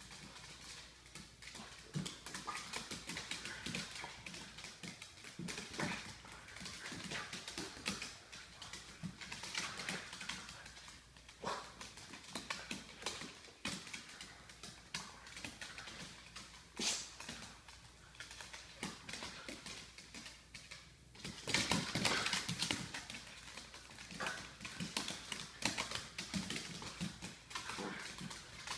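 Two dachshunds play-fighting on a hardwood floor: their claws click and scrabble irregularly on the wood, mixed with the dogs' own play noises. The scuffle is loudest about three-quarters of the way through.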